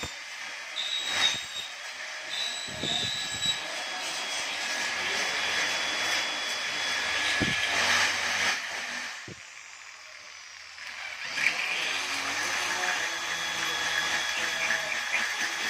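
Electric drill boring holes through an aluminium screen-door frame profile to open the slot for a door lock, the motor running under load. It falls quiet briefly a little after halfway, then drills again.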